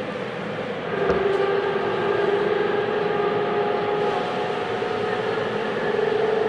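Tobu 9050 series electric train under way, heard from on board: steady running noise, with a whine of several steady tones from its GTO-VVVF inverter and traction motors that starts with a light click about a second in and shifts slightly in pitch.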